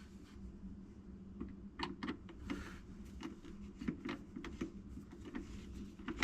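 Scattered light clicks and knocks of a screwdriver and plumbing parts being handled under a kitchen sink, over a faint steady hum.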